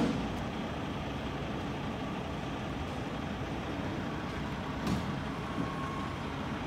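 Semi truck running steadily as it slowly backs a trailer, with a short knock at the very start and another about five seconds in.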